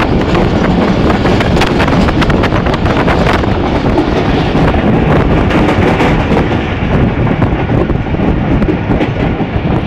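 Moving passenger train heard from on board: a loud, steady rush of wind on the microphone over the train's running noise, with dense clattering clicks that thin out after about five seconds.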